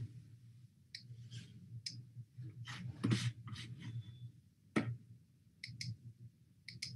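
About a dozen light, irregularly spaced clicks of a computer mouse, over a faint low hum.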